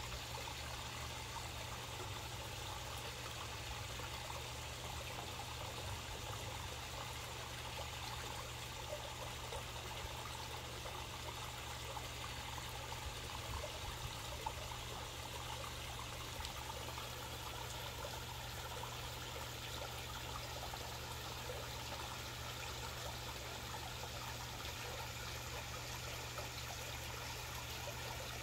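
Water from a small stone waterfall trickling and splashing steadily into a koi pond, with a steady low hum underneath.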